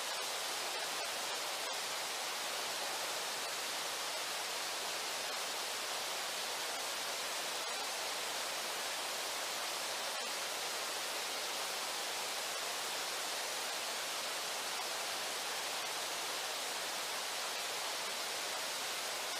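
Steady, even rush of the Brooks River's flowing water, with a few faint ticks about a second in.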